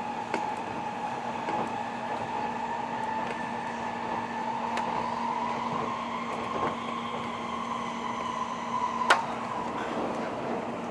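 Inside a Tokaido Shinkansen car running at speed: a steady hum and rumble with a faint high whine. A few light clicks, and one sharp click about nine seconds in.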